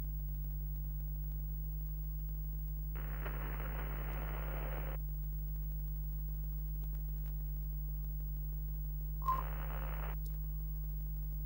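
Retro television sound effect: a steady low electrical hum, with a burst of static hiss about three seconds in lasting two seconds and a shorter burst near the end that opens with a click.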